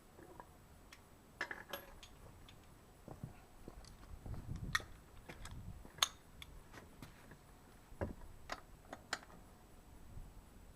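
Scattered metallic clinks and knocks of tools worked on a motorcycle's rear wheel as it is being undone, with a few sharper knocks in the middle and latter part.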